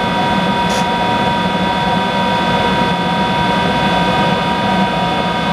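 Monarch 10EE lathe's motor-generator drive set running steadily at speed: a constant whine made of several high steady tones over a low hum.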